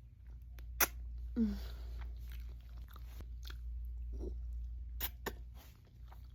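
A person chewing ramen noodles close to the microphone, with a few sharp wet mouth clicks. A steady low hum runs underneath.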